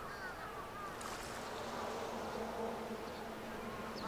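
A flying insect buzzing near the microphone as a steady hum for about two seconds in the middle, with short falling bird chirps near the start and at the end.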